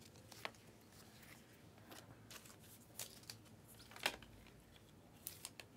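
Faint clicks and rustles of a stack of glossy trading cards being slid and flipped one against another in the hands, a soft flick every second or so.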